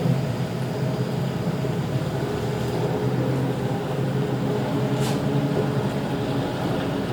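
A steady low rumble with a fainter hiss above it, and one short sharp click about five seconds in.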